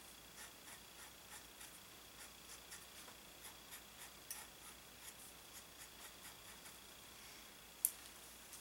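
Faint scratching of a steel 512 dip pen nib on drawing paper, in short hatching strokes about two or three a second, with a single sharp click near the end.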